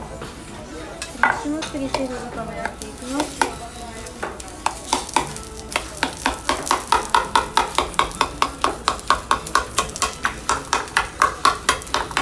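Okonomiyaki batter of shredded cabbage being mixed in a metal bowl, the utensil clicking against the bowl in a steady rhythm of about three strokes a second from a few seconds in.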